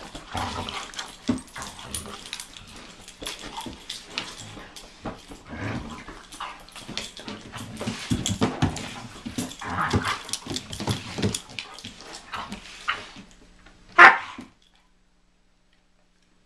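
A Doberman and a Belgian Malinois play-fighting: a dense run of barks and growls mixed with scuffling and claws clicking on a hard floor. One loud bark comes about fourteen seconds in, and then the sound cuts out.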